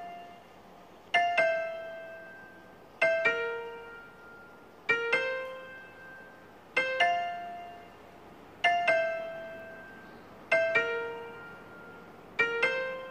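Background piano music: slow chords struck about every two seconds, each ringing out and fading before the next.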